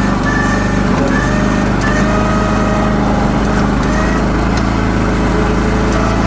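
Towable backhoe's engine running steadily, its pitch shifting slightly a few times.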